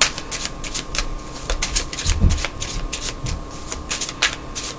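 A deck of tarot cards being shuffled by hand, with quick irregular clicking and slapping of cards against each other. A low thump about two seconds in.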